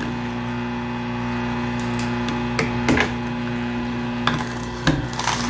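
Horizontal slow masticating juicer, a bladeless auger type, running with a steady hum while vegetables are pushed down its feed chute with the plunger. Several sharp cracks and knocks come about halfway through and again near the end as the vegetables are crushed.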